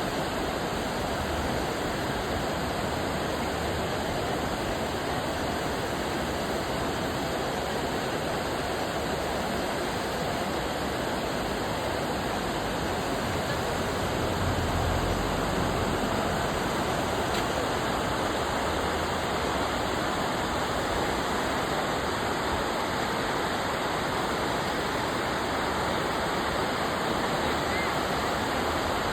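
Steady rushing of flowing water, an even unbroken hiss with no distinct splashes.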